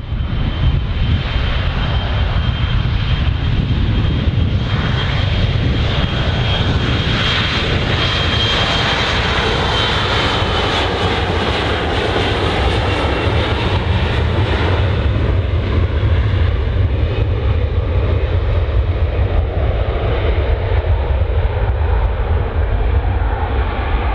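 Airliner jet engines: a loud, steady rumble, with a thin high whine over it that fades out about halfway through.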